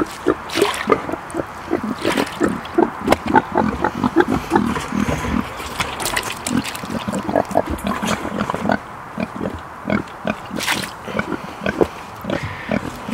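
Young pigs grunting, a steady run of short, low grunts, several a second.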